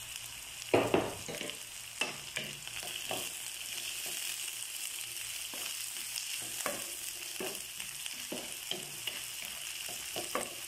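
Green bell pepper strips sizzling with onion, garlic and ginger in a hot wok, stirred with a wooden spatula that scrapes and knocks against the pan every second or so; the loudest knock comes about a second in.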